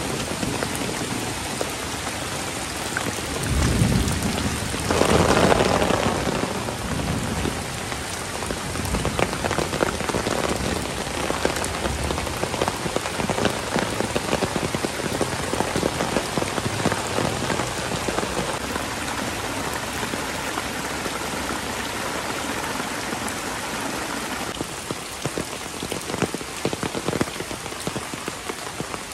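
Heavy rain pouring steadily, with a rumble of thunder swelling about four to six seconds in.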